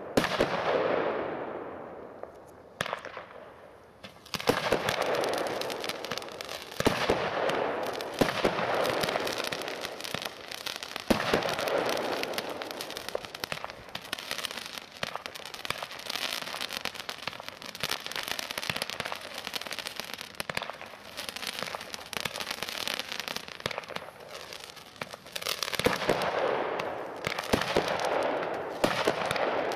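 WECO Power Tec PRO 180.1 fireworks compound cake firing, a single-ignition cake of 196 shots. It goes off in a rapid, near-continuous run of shots and bursts, after a short lull about two to four seconds in.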